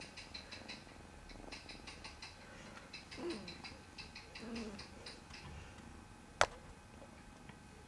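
Domestic cat purring faintly in short rhythmic spells while being massaged, with one sharp click about six and a half seconds in.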